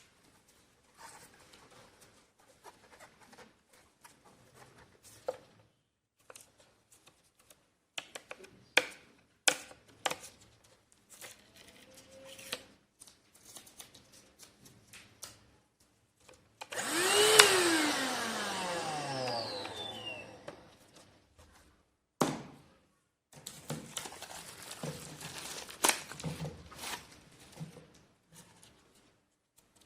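Handheld car vacuum cleaner's motor switched on briefly about 17 seconds in, then cut off and spinning down with a falling whine over about three seconds. Plastic clicks and knocks of handling come before and after.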